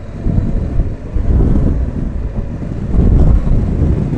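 Motorcycle under way at road speed: wind buffeting the microphone in uneven gusts over the low rumble of the bike, swelling louder twice.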